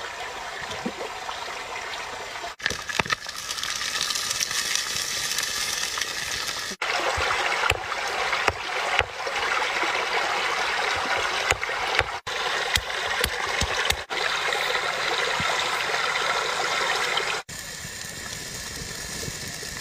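Shallow stream water rushing over rocks, in a run of short cut-together clips. In the middle come a series of sharp knocks, fitting a knife chopping chilies on a stone. After a cut near the end the water gives way to a steady hiss of eels frying in hot oil.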